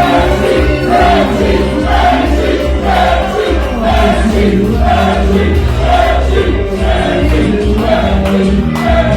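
Music with choir-like singing over a steady bass beat, the sung phrase repeating about once a second.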